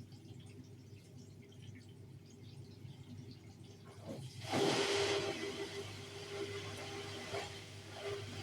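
Bosch Series 4 washing machine humming quietly, then a sudden rush of water about four seconds in that carries on steadily, with a steady hum under it.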